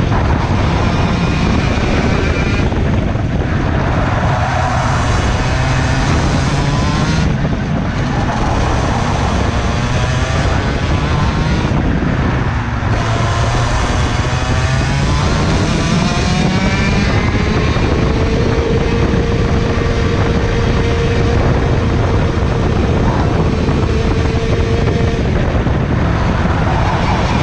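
IAME 125cc two-stroke OKJ kart engine at racing speed, heard from the kart itself. Its pitch climbs out of each corner and drops away under braking three times in the first half, then holds a steady high note along the straight.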